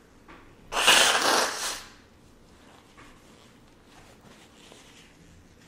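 A person blowing her nose hard into a paper napkin: one loud, noisy blast lasting about a second, about a second in, followed by faint rustling.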